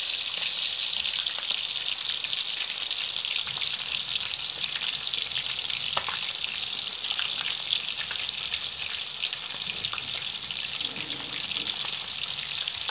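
Pieces of fish frying in hot oil in a wide metal pan: a steady sizzle with fine crackling.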